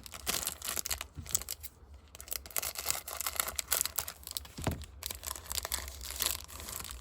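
Trading-card pack wrapper being torn open and crinkled by hand: a continuous string of small rips and crackles.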